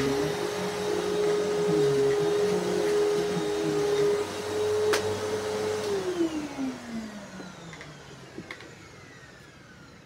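Upright vacuum cleaner motor running steadily, then switched off with a click about halfway through; the motor winds down, its hum falling in pitch over about two seconds and fading out.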